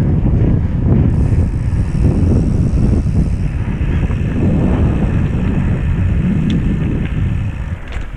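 Wind buffeting the microphone of a strap-mounted GoPro Hero 5 Session, mixed with the low rumble of a mountain bike's knobby tyres rolling along a concrete and dirt path. A few brief clicks or rattles from the bike come in the second half.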